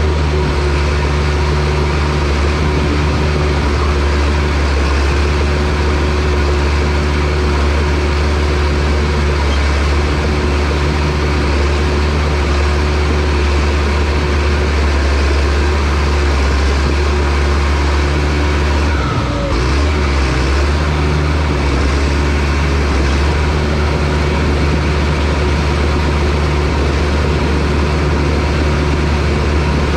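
John Deere bulldozer's diesel engine running steadily at working revs, with a brief dip in its note about two-thirds of the way through.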